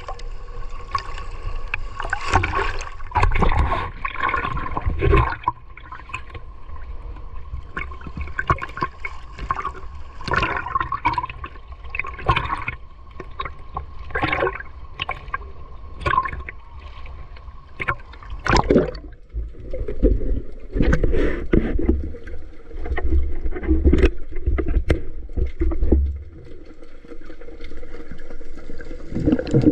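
Seawater splashing and sloshing around a swimmer in fins, with irregular sharp splashes; the sound turns duller and more muffled about two-thirds of the way through.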